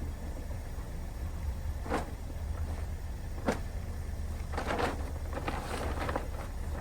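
Several short rustling or scraping sounds over a steady low rumble: two single ones about two and three and a half seconds in, then a quicker run of them near the end.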